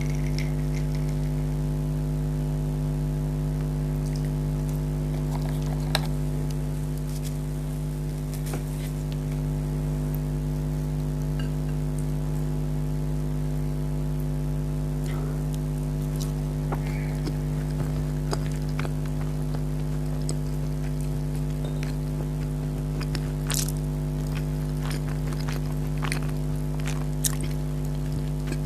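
A steady electrical hum with a stack of evenly spaced tones, the loudest thing throughout. Over it come scattered faint clicks and crackles of chewing and handling food.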